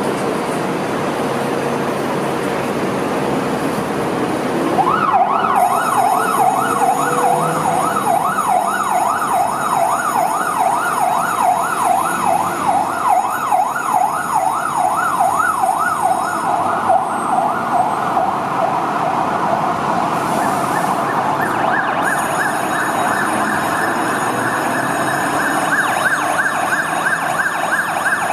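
Fire truck siren starting about five seconds in with a fast up-and-down yelp, about three sweeps a second. Near the end it sweeps higher. Before it starts there is steady traffic and engine rumble.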